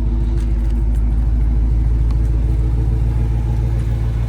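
Dodge Charger's V8 idling steadily just after a warm start, a loud, even low-pitched running sound with no revs.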